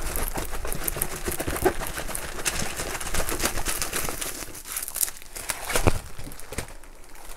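Diamond painting canvas under its plastic protective film crinkling and crackling as it is handled and unrolled to flatten it. It is a dense run of small crackles with a few louder ones about five and six seconds in, thinning out near the end.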